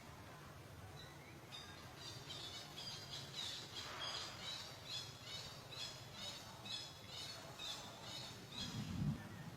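Repeated short, high-pitched animal squeaks, about one or two a second, with a low thump near the end.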